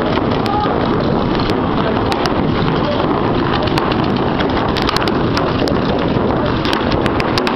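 Paintball markers firing in rapid, overlapping strings, echoing through a large indoor arena, with sharper cracks bunched about five seconds in and again near the end.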